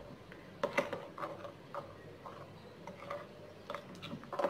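A spoon clicking and scraping against a glass bowl while stirring wet cake batter, in irregular light taps.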